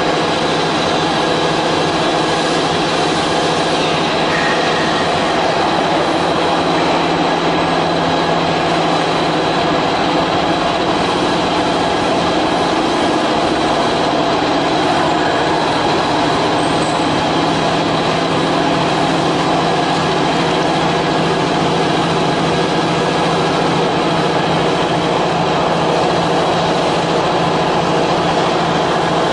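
CNC router running steadily, with its air-cooled spindle and vacuum-table pump giving an even, loud mechanical noise and a faint steady high whine.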